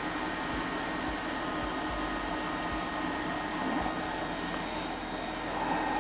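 Hot air rework station blowing steadily while a power-controller IC is soldered onto a laptop motherboard.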